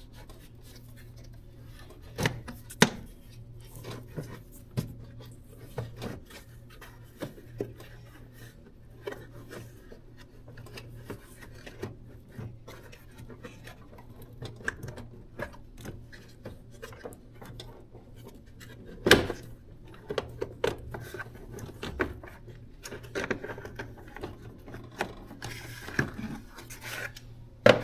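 Plastic clicks, knocks and rubbing as a truck's engine-bay fuse box cover is unlatched and handled. The sharpest snaps come about 2 and 3 seconds in and again a little past the middle.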